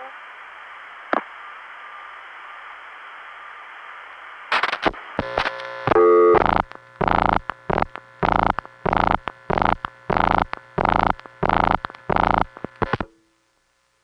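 Analog long-distance telephone line after the operator drops off: steady line hiss with a single click, then a flurry of switching clicks and tones about four and a half seconds in. This is followed by a harsh pulsing busy signal, about one and a half pulses a second, which cuts off suddenly near the end.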